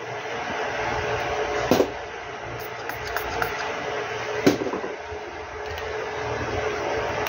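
Steady whir of a small fan or motor, with two sharp clicks, one near two seconds in and one about halfway through.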